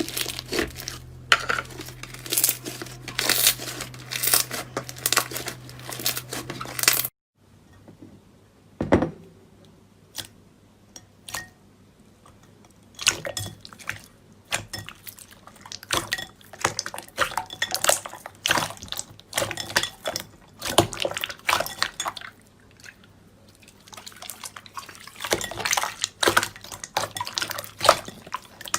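Slime being squeezed and pressed by hand, making irregular wet clicks and pops. About seven seconds in the sound cuts off abruptly to a quieter passage with a single sharp knock, then the clicking builds again.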